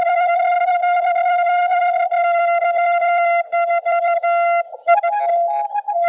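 Morse code (CW) tone from the ham radio: one steady pitch held unbroken for about three and a half seconds, then keyed into dots and dashes. Near the end a second, slightly higher-pitched Morse signal overlaps with it.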